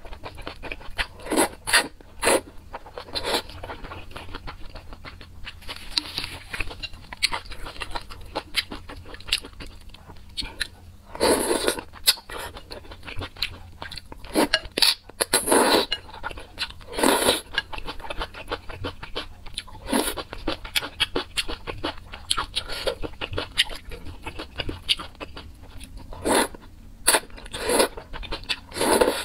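Eating thick noodles in spicy sauce: short loud slurps every few seconds as strands are sucked in, one longer slurp about a third of the way through, with soft wet chewing between them.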